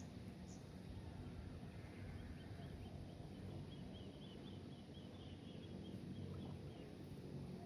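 Faint outdoor ambience: a steady low rumble, with a small bird giving a run of faint high chirps, about four a second, through the middle.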